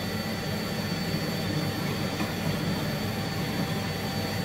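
Steady whir and rushing air of the electric blowers on a soldering rework bench, with a few faint, constant thin whines on top.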